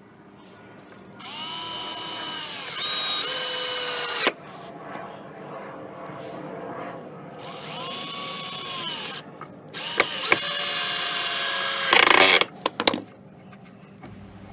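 Power drill driving screws into plywood: three short runs of the motor whine, each rising in pitch as it speeds up and cutting off abruptly as the screw seats, followed by a few sharp knocks.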